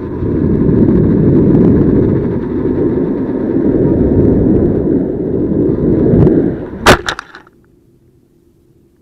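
Loud, rough rumbling and rustling noise close on the crashed tricopter's onboard action-camera microphone. It ends in a sharp clack about seven seconds in, after which only a faint hum remains.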